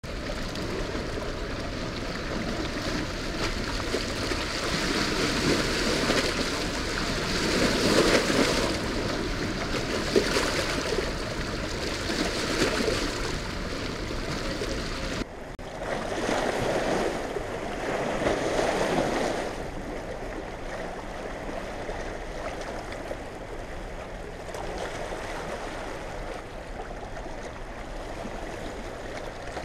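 Rushing water of a dam tailrace, the heavy flood-release outflow churning below the spillway gates. It runs on without a break and swells louder at times.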